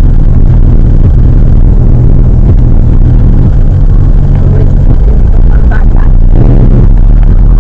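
Loud, steady low drone of a car's engine and road noise heard from inside the moving car through a dashcam's built-in microphone.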